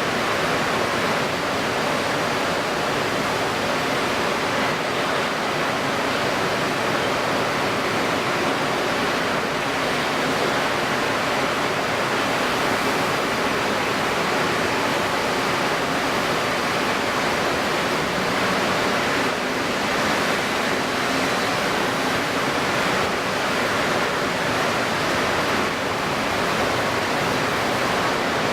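Steady rushing noise of choppy, wind-stirred water under a strong pre-typhoon wind, even and unbroken throughout.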